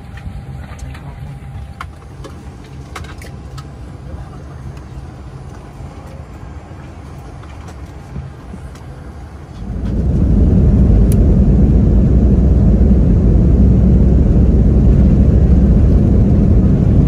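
Steady low hum of an airliner cabin, with a few faint clicks. About ten seconds in, a much louder low rumble sets in quickly and holds steady.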